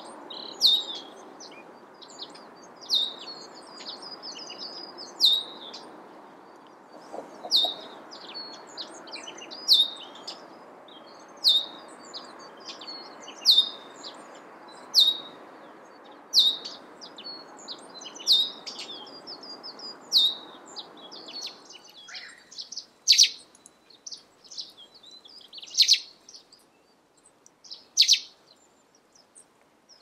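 Male russet sparrow singing: a long run of short, high chirps, about one every one to two seconds.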